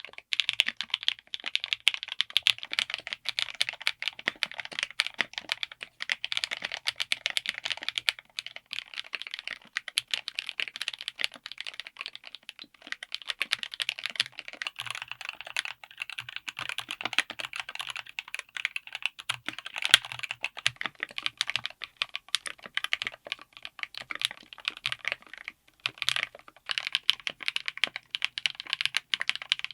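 Fast, continuous typing on a mechanical keyboard fitted with linear switches, a dense run of keystrokes broken by brief pauses a couple of times.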